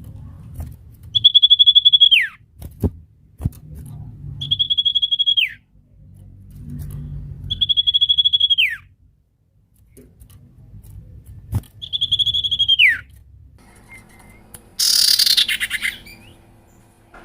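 Sirtu owl lure call: four high, rapidly pulsed whistles, each held about a second and then dropping sharply in pitch, repeated roughly every three seconds. Near the end comes one harsher, scratchier call over a low background rumble.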